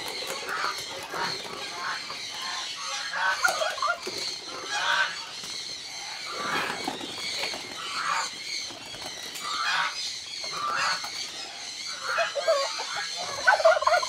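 Domestic geese honking, a string of short calls repeating throughout, loudest in a burst near the end.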